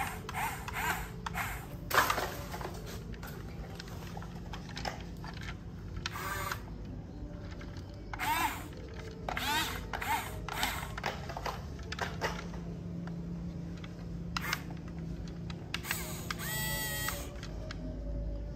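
Huina toy remote-control excavator's small electric motors whirring in short spurts as the arm and bucket move, their pitch sweeping up and down, with small clicks.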